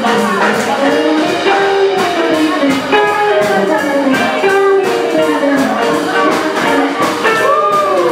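Live swing band playing an up-tempo jazz number, with melody lines over a steady beat.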